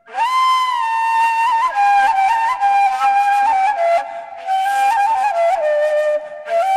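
Ney, the Mevlevi end-blown reed flute, playing a slow, breathy melody. It plays long held notes that slide between pitches, broken by short pauses for breath.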